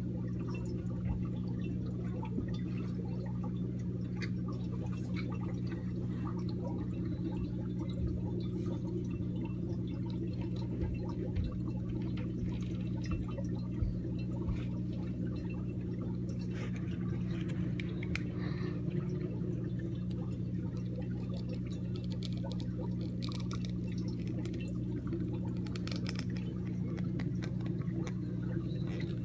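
Aquarium sponge filter bubbling and gurgling, with small splashy ticks, over a steady low hum from the air pump that drives it.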